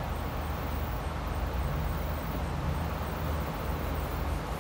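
Steady outdoor background noise: a low rumble with an even hiss and no distinct events.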